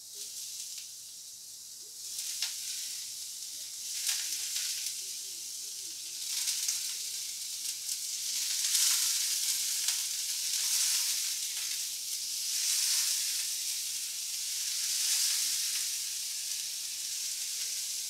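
White asparagus spears sizzling hard on a hot cast iron grill pan, the hiss swelling and easing every couple of seconds as more spears are laid on.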